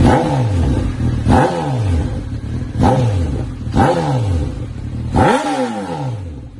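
Honda inline-four motorcycle with an SC Project S1 slip-on exhaust, blipped five times at standstill. Each rev rises sharply and falls back to idle, about one to one and a half seconds apart.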